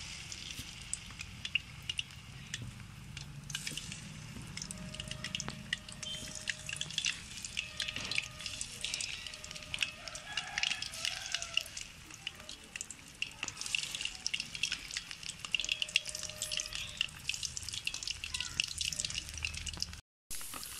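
Batter-coated mushroom chilli pieces deep-frying in hot oil: a steady, dense sizzle and crackle of popping bubbles. It cuts out briefly just before the end.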